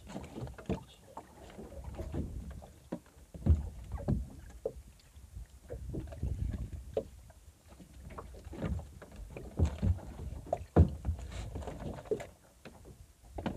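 Irregular knocks and thuds on a small open fishing boat and water sloshing against its hull as a big fish is hauled alongside on a line and hooked pole, with gusts of low rumbling.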